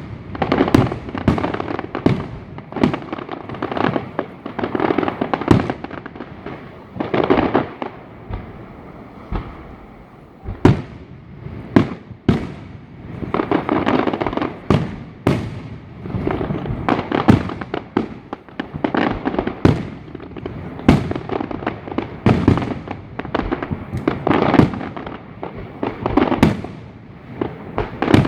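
Fireworks going off: many sharp bangs at irregular intervals with crackling bursts between them, easing off briefly about a third of the way through before picking up again.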